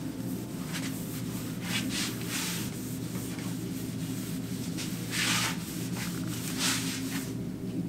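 A pad rubbing sumi ink along the edge of a white oak board: a few swishing wiping strokes, the loudest about five and six and a half seconds in.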